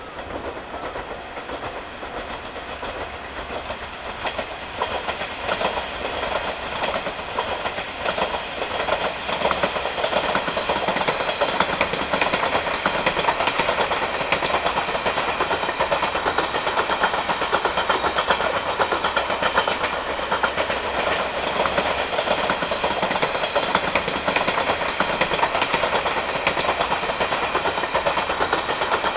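A three-car diesel railcar train running past, its wheels clattering over the rail joints and its engines droning. The sound grows louder partway through as the train comes closer.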